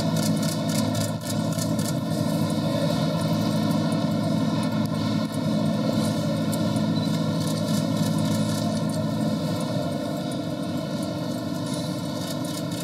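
Steady background din of a busy exhibition hall, with a low hum underneath that drops away about nine seconds in.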